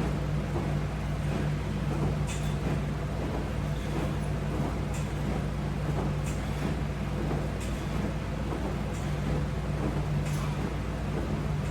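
A steady low hum under a constant noise haze, with short soft hissing sounds recurring about every one and a half seconds.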